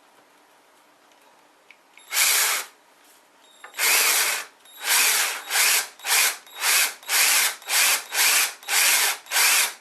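Power drill boring a shallow recess for a wing nut body into the wooden sled, run lightly in short bursts: one burst after a quiet start, then a steady string of brief pulses about two a second.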